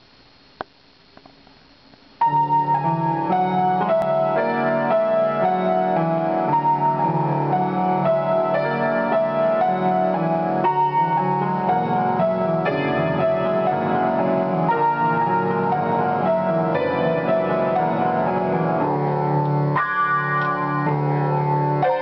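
Grand piano played four-hands as a duet, a waltz starting about two seconds in and carrying on steadily. Before it begins there is a short quiet stretch with a single click.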